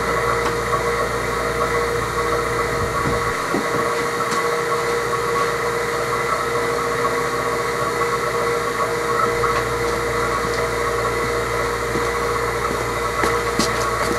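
HVAC vacuum pump running steadily, pulling vacuum on a mason-jar catch chamber for one-man brake bleeding. A few sharp clicks near the end.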